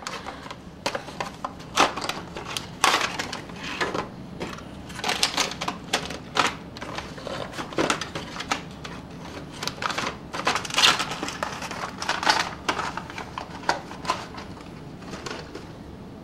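Small cardboard boxes and a plastic HO-scale model freight car being handled as the car is taken out of its box: irregular clicks, taps and rustling of cardboard.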